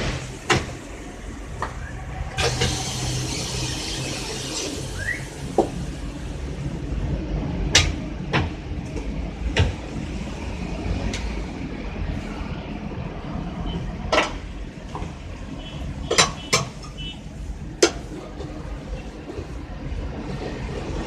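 Electric motorcycle tyre-changing machine humming steadily, with scattered sharp metal clanks and knocks, and a burst of hiss lasting about two seconds near the start.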